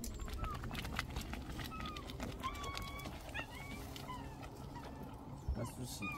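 Birds calling in many short, scattered chirps and peeps over a steady low rumble, with occasional clicks.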